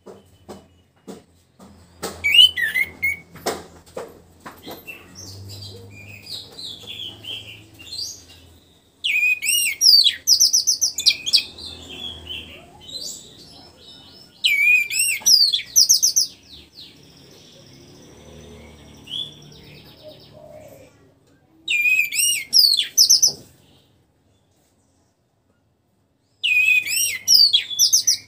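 Orange-headed thrush singing in loud, rich, rapidly varied phrases of one to two seconds, repeated every few seconds with softer twittering between them. The bird is just past its moult and coming back into full song.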